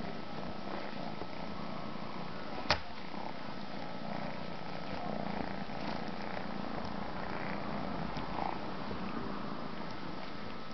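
A cat purring steadily, with one sharp click a little under three seconds in.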